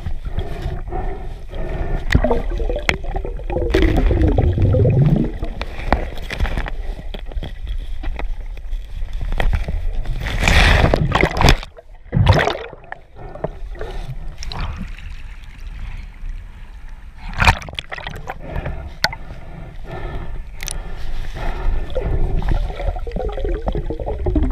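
Underwater sound heard through an action camera's waterproof housing: water churning and gurgling against the case, with scattered knocks. A louder rushing burst comes about ten seconds in, drops out briefly, then a sharp hit follows.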